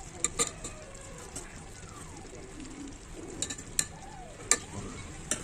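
A steady sizzle from the chicken masala in the pot, with about five sharp clinks of a utensil against the aluminium pot: two near the start and three in the second half.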